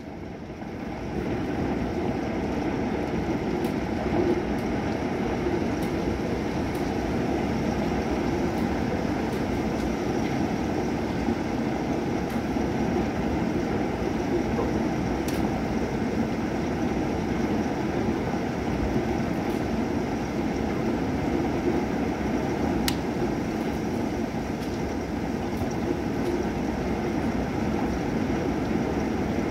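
Thunderstorm rain falling steadily and heavily in a dense, even rush, with a few faint sharp ticks of drops. It swells up about a second in.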